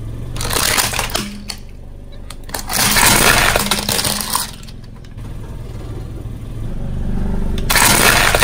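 Car tyre rolling over a hard plastic toy dinosaur and crushing it: plastic cracking and crunching in three bouts (about half a second in, around three seconds in, and near the end as the tyre runs over the broken pieces), with the low rumble of the car underneath.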